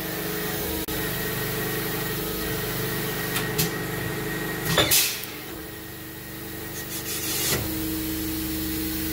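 Cylinder boring machine running with a steady motor hum, its boring bar down in a cylinder of a Ford Windsor V8 block. A knock sounds about five seconds in, and the hum drops for a couple of seconds before coming back.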